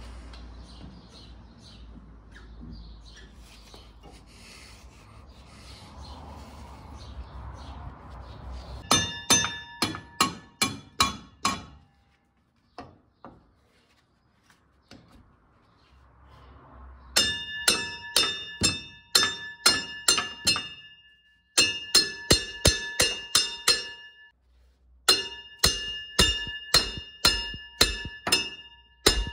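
Hammer blows on a steel bolt, each strike ringing, in four runs of about three blows a second with short pauses between: driving out the rear shock absorber's lower mounting bolt. A low rumble and handling noise come before the first blows.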